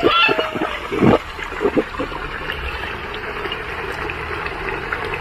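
Water pouring steadily out of the opened drain outlet of a backyard fish tank as the tank is drained, with a few short knocks in the first two seconds.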